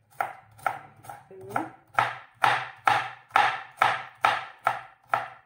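Kitchen knife chopping a red onion on a wooden cutting board: an even run of sharp knocks of the blade on the board, about two a second, as the onion is diced very fine.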